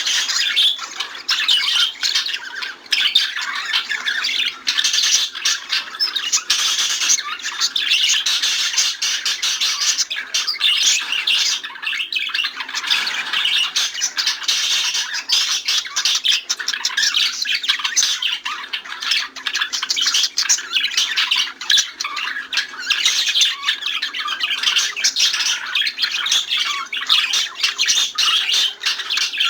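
A flock of budgerigars chattering, warbling and squawking together in a continuous dense stream of rapid chirps.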